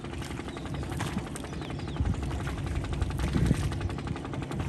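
Motorboat engine running steadily with a fast, even putter.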